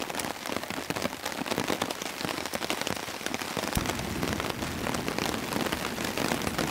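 Heavy rain pattering steadily, dense drops striking the tarp and the ground. About four seconds in, a steady low rumble joins it.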